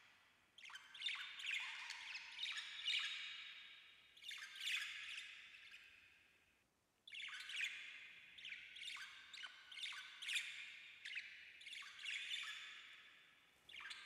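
Budgerigars chirping and chattering in quick, sharp calls, in two bouts with a short lull about seven seconds in.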